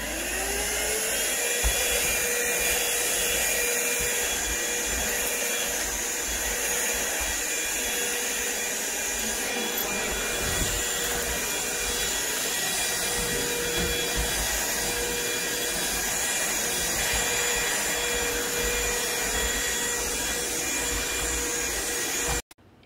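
Cordless vacuum cleaner motor spinning up with a rising whine, then running steadily with a high hum. It cuts off suddenly near the end.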